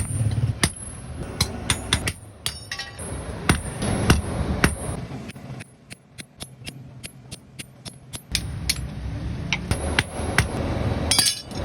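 Hand hammer striking iron in blacksmith forging: repeated sharp metallic blows that ring, at an irregular pace. In the middle the blows turn into quicker, lighter taps, then heavier strikes return.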